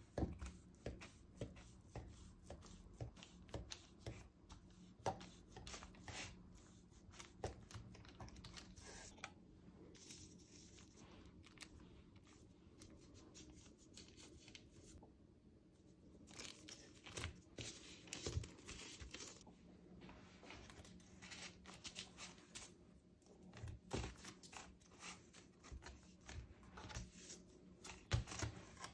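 Quiet handling sounds: a knife cutting in short strokes down a puff-pastry roll filled with poppy-seed paste, then hands pulling the cut halves open and twisting them, with baking paper crinkling and rustling under the dough.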